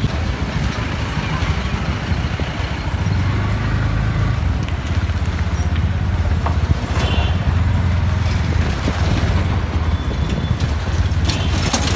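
Motorcycle engine running as it rides slowly through street traffic: a steady low rumble.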